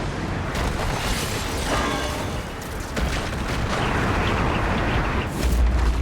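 Film sound effects of a massive explosion: a continuous loud rumble with scattered crashes, swelling to a heavy low boom near the end.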